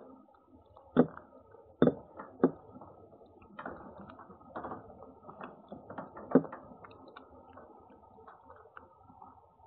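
A cat eating from a dish right by the microphone: irregular small clicks and crunches, with four sharp, louder knocks, about one, two, two and a half and six and a half seconds in.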